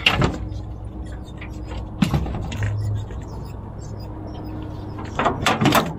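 Sharp knocks and clatters on a fishing boat as a freshly caught catfish hanging on the line is handled over the deck: a few at the start, a pair about two seconds in, and a louder run near the end. A steady low hum runs underneath.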